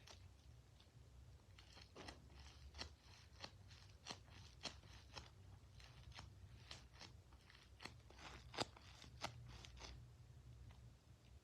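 Quiet, irregular crunchy crackles from a squishy toy being squeezed and handled, many short sharp crackles at uneven intervals.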